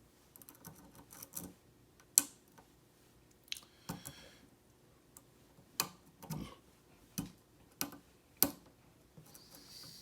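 Metal lock pick working the pins of a pin-tumbler lock built from a Schlage SC1 cylinder: light, irregular metallic clicks and small scrapes, with about eight sharper clicks spread through.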